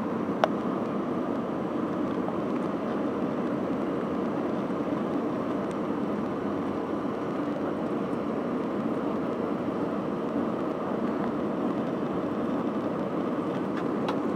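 Steady cabin noise inside an Airbus A320 on final approach, the even rumble of its engines and the airflow, with one faint click about half a second in.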